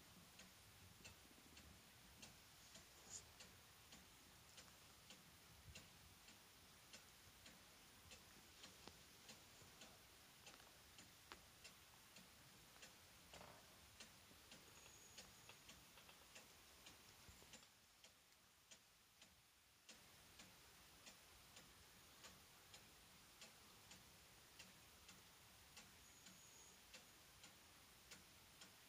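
Near silence: faint room tone with a steady train of soft, regular ticks, roughly two a second, like a clock ticking.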